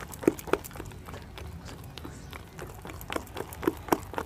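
A hand beating wet ground matar-dal (split pea) paste in a steel bowl: repeated short slaps, two near the start, fainter ones in the middle, and a quicker run near the end. The paste is being whipped by hand to aerate it, so the bori come out light rather than hard.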